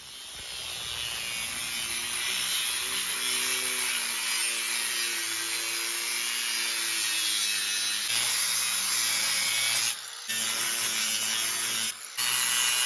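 Angle grinder with a cut-off wheel cutting into steel plate: a steady, loud, hissing screech with the motor's pitch shifting as the wheel loads in the cut. It breaks off briefly twice near the end.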